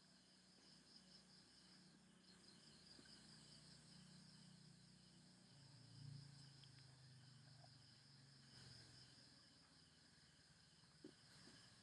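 Near silence: faint, steady insect chirping in the background, a fine pulsing high trill, with a faint low hum swelling briefly about six seconds in.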